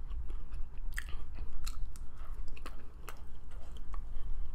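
Close-up chewing and biting of food, with irregular small clicks from the mouth and teeth.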